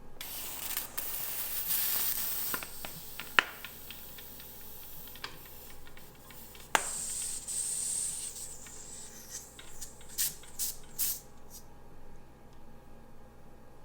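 CO2 cartridge inflator hissing as gas rushes through the adapter into a bicycle inner tube via its Presta valve, in two spells of hiss, the first longer and stronger. Sharp clicks come between them, and a run of short taps and clicks follows from handling the inflator.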